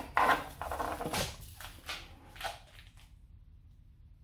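Several short rustling, scraping noises of loose aluminium chips being gathered and handled, spaced irregularly over the first three seconds. After that only a faint low hum remains.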